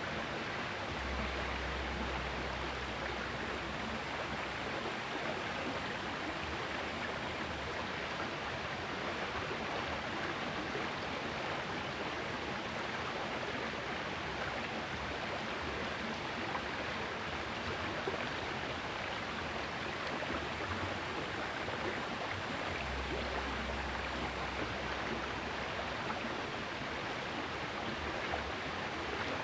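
Small river flowing, a steady rush of running water, with a low rumble twice that lasts a few seconds each time.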